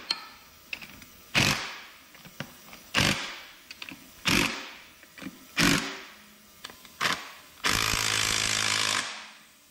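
Small power tool running bolts into an engine crankcase in short bursts, five in a row about every second and a half, each spinning down, with light clicks of the tool and bolts between. Near the end it runs steadily for a little over a second, then stops.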